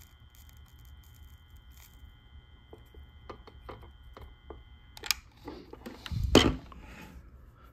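Faint electrical hum from a soldering gun in use on a wire, with light ticks of the wire and solder being worked, cutting off about five seconds in. Handling clatter follows, with one loud knock as the tool is lifted and set down.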